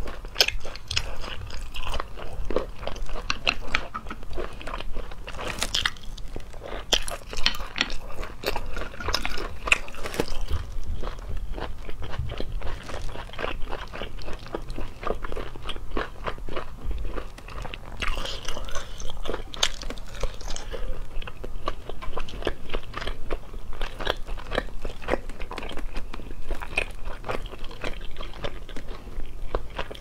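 Close-up eating of cooked cat's eye snails: steady biting and chewing, with many irregular crunches and sharp clicks. The meat is firm and hard on the teeth.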